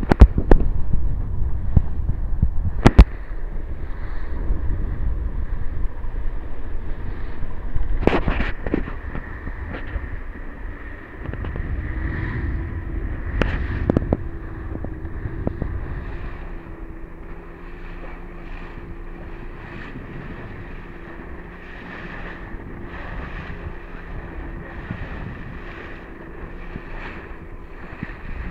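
Powerboat under way through a chop: wind buffeting the microphone over the steady drone of the boat's engine, with a few sharp knocks in the first half.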